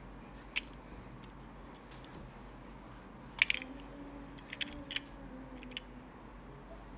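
A few short, sharp clicks and taps of small objects being handled, with a cluster of them about halfway through, over a steady low hum.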